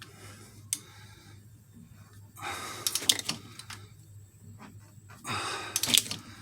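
Sharp metallic clicks of a torque wrench working on cylinder head bolts, with two heavy breaths of effort, one about 2.5 seconds in and one about 5 seconds in.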